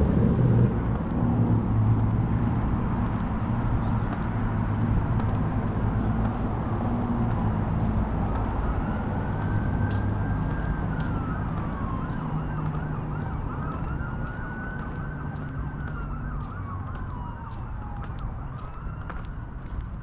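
Faint emergency-vehicle siren wailing, its pitch slowly rising and falling over and over from about halfway through, over a steady rumble of traffic. A passing vehicle's engine fades out in the first second, and footsteps tick along steadily.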